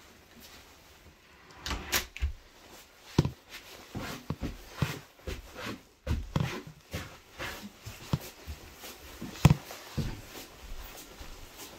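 Irregular knocks and thumps of someone walking through an old house with wooden floors: footsteps on the floorboards and small bumps, one sharper knock late on.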